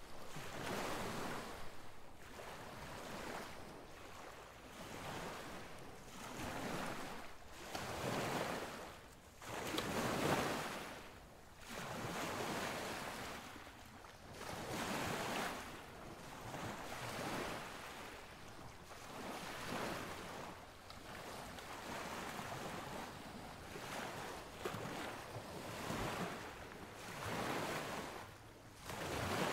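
Rushing beach noise of surf and wind, swelling and fading every second or two.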